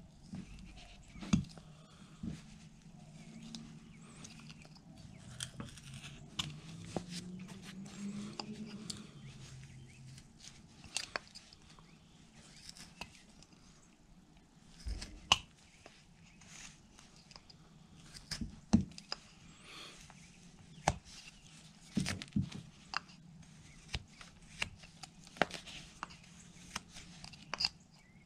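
Carving knife cutting by hand into a basswood block: short, irregular slicing and scraping cuts with sharp ticks as the wood fibres part, deepening a cut line around the block.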